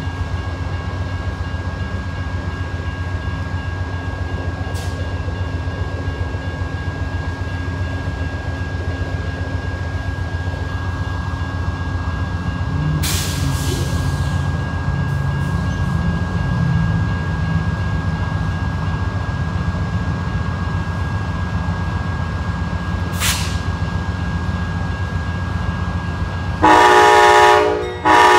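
Amtrak diesel locomotive running with a steady low engine rumble, with two short hisses about halfway and two-thirds of the way through. Near the end its air horn blows two loud blasts.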